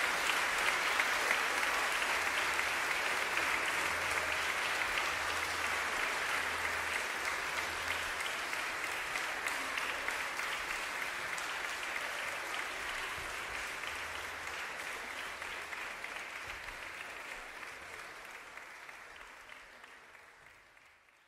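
Audience applauding: a dense, even clapping that fades out gradually over the whole stretch and is gone about twenty seconds in.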